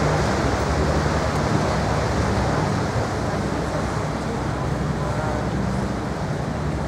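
Sightseeing boat underway: its engine runs with a steady low hum under a constant rush of wind and water noise.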